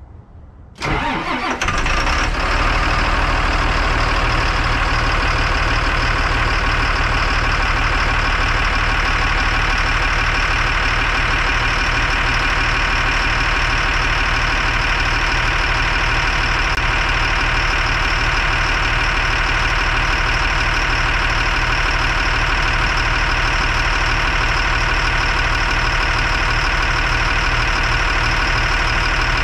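The Mercedes-Benz diesel engine of a 2007 Thomas HDX school bus being cold-started: it cranks briefly and catches about a second in, then settles into a steady idle with an even firing pulse.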